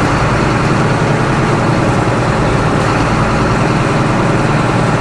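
Heavy diesel engine running steadily at a constant speed. Its loud, even noise does not change.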